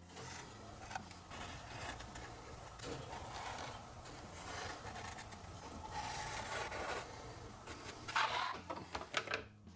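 Pencil scratching on a pine board as it traces around a tape roll and then a round lid, with soft rubbing of the objects on the wood. It is faint, with a few louder strokes near the end, over a low steady hum.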